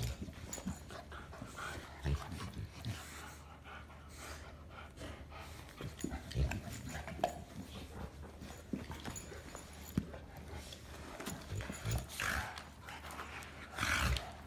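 A Saint Bernard and a small pit bull play-wrestling on the floor: mouthing and breathing noises from the dogs with scattered soft knocks, a little louder near the end.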